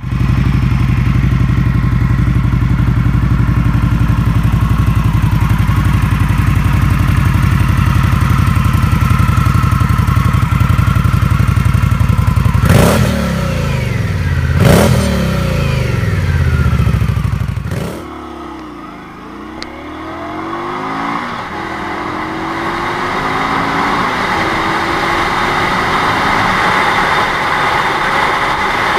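Indian Scout V-twin idling steadily through its dual exhausts, blipped twice about halfway through. After a cut, a V-twin cruiser heard from the rider's seat pulls away on the road, its engine note rising as it accelerates, with wind rush building.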